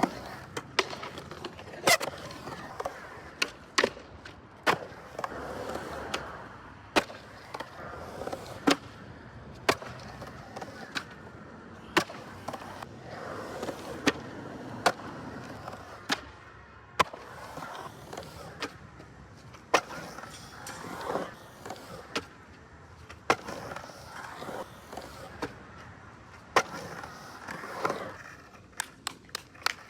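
Skateboard rolling on hard ground, its wheels making a steady rolling noise, broken by many sharp clacks and slaps of the board hitting the ground, one every second or two, with a quick run of them near the end.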